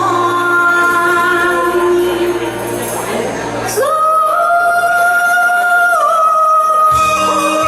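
A song with singing over instrumental accompaniment; about halfway through, one long steady note is held, dipping slightly in pitch before the end.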